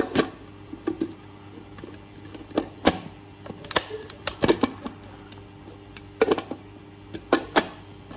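Plastic parts of a baby food processor being handled: irregular clicks and knocks as lids and pieces are opened, fitted and snapped into place.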